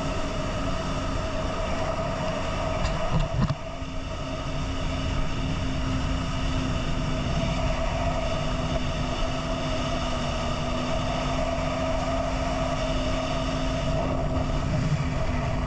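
Personal watercraft engine running steadily at speed over open sea, a constant droning hum over the rush of wind and water, with one brief dip about three seconds in.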